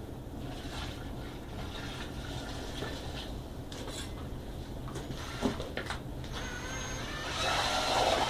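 Liquid poured and sloshing into a plastic bucket, with small knocks against it. A louder steady noise starts near the end.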